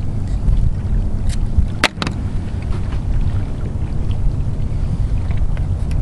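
Low, steady rumble of wind buffeting the microphone on a fishing boat, with one sharp click a little under two seconds in.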